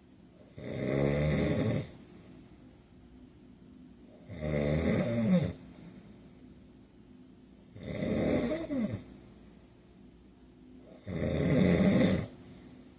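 A man snoring in his sleep: four long snores, one about every three and a half seconds, each lasting a little over a second, with quiet gaps between.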